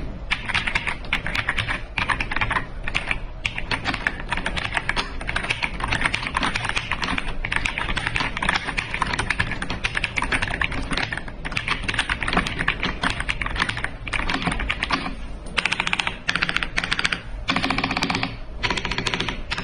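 Fast typing on an AJAZZ AK820 mechanical keyboard: a near-continuous run of key clacks with a few short pauses.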